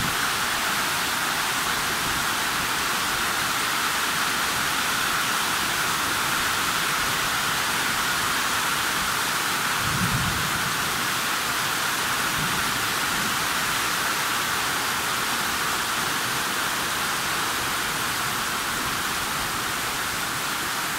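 Heavy rain pouring steadily, a dense even hiss of water splashing onto roofs and into standing floodwater. There is one brief low thump about halfway through.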